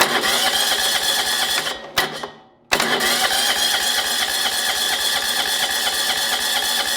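John Deere Hydro 185 lawn tractor's electric starter cranking the engine over without it catching: a short crank, a brief pause about two seconds in, then a second, longer steady crank. The battery is now strong enough to turn the engine, so the no-start is not the battery; the engine has no spark.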